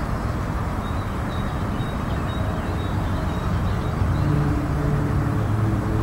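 Rain falling on shallow pond water: a steady wash of water noise. Low steady tones join in about four seconds in.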